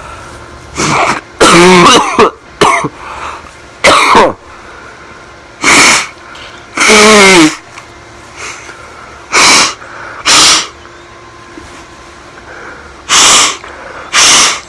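A person coughing hard and repeatedly: about ten short, loud bursts with pauses between them, some with a rasping voiced tone that falls in pitch.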